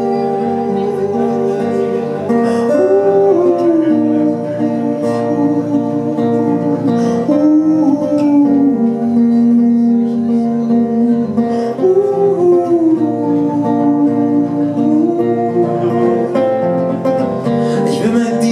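Live acoustic guitar strumming, with a man singing a slow, held melody over it.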